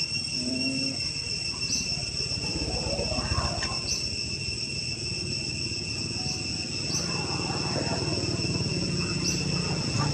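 Insects droning steadily in several high, shrill tones, with a short chirp repeating about every two seconds, over a low background rumble.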